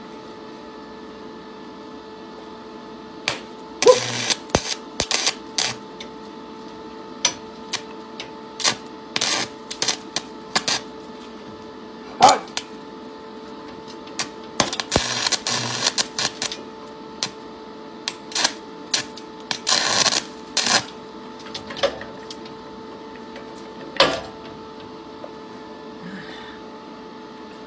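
Arc welding with a screwdriver clamped in a stick welder's electrode holder as the electrode: the arc crackles in short, broken spurts of a fraction of a second to about a second, striking and going out again and again, over a steady hum.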